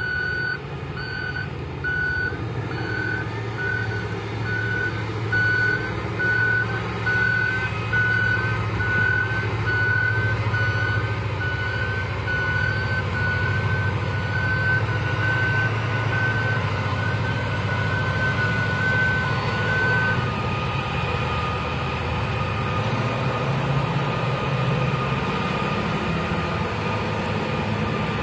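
Large mining haul truck reversing: its back-up alarm beeps steadily, about a beep and a half a second, over the low, steady running of its diesel engine. The beeping stops about 20 s in, leaving the engine and a steady higher whine. The engine grows louder a few seconds later as the loaded truck sets to dump, blowing black exhaust smoke.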